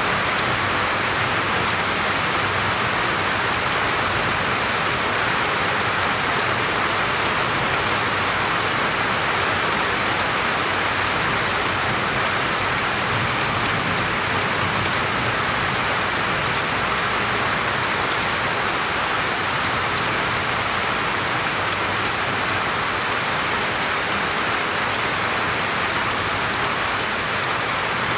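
Steady rain heard from under a roof: an even, unbroken downpour on the roof and the surrounding tree leaves.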